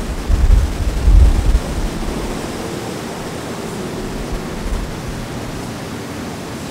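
Steady rushing outdoor noise, with heavy low rumbles through the first two seconds or so.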